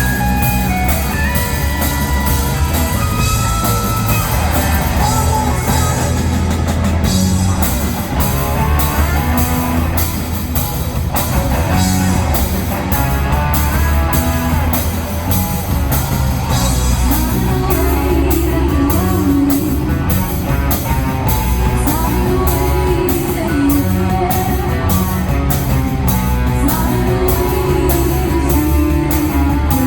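Rock music played on electric guitar, bass and drum kit, with a steady beat throughout.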